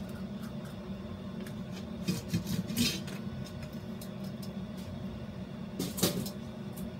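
Hands pressing and scraping a small white cup against a mound of damp sphagnum moss: bursts of rustling and crackling about two seconds in and again about six seconds in, over a steady low hum.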